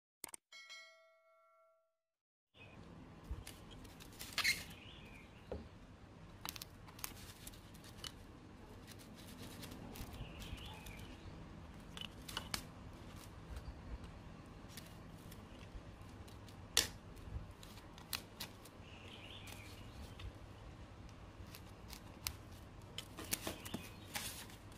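A short chime rings and fades out at the start. After a brief gap come quiet handling sounds of a foam sheet, pencil and plastic ruler on a wooden table: scattered sharp clicks and taps and soft rustles over low room noise.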